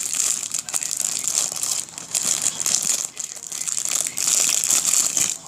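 Packaging being handled, crinkling and rustling irregularly for several seconds.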